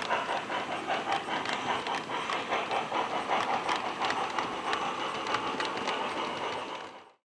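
Model train running past on the layout track: a rapid, fairly regular clicking rattle of coach wheels over the rails, fading out quickly near the end.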